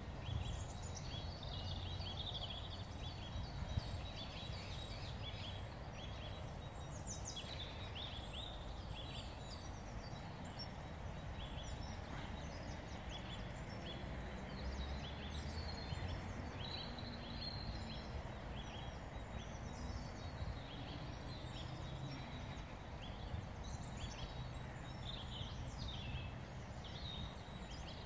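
Outdoor ambience of many small birds chirping and singing in quick, repeated short notes, over a steady low rumble.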